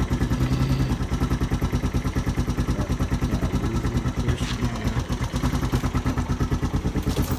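Four-wheeler (ATV) engine idling steadily while it warms up after a cold start, its firing pulses coming quickly and evenly.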